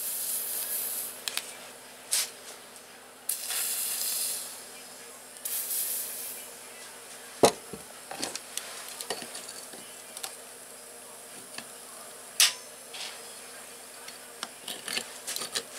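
Aerosol spray can hissing in three short bursts onto the torch-heated bolt, then a few sharp metallic clicks and knocks as tools go onto it.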